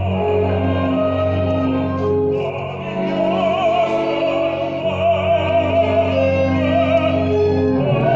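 Operatic singing with a wide vibrato over orchestral accompaniment that holds steady sustained notes underneath.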